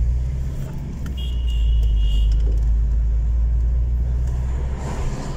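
Steady low rumble of a car's engine and tyres, heard from inside the moving car. A faint high tone sounds for about a second, a little over a second in.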